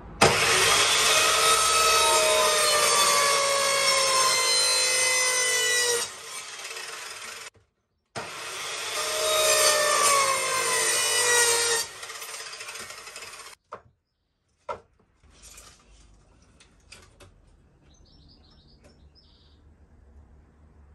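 Electric mitre saw cutting pallet wood twice: two loud runs of about six and four seconds, each a high whine that slowly sinks in pitch. An abrupt gap separates them. After the second cut it fades to faint knocks and clicks of wood being handled.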